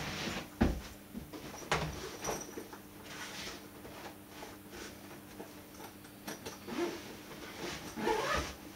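Rustling and handling noises of clothes or belongings being moved about, with a few light knocks, the sharpest about half a second and about a second and a half in.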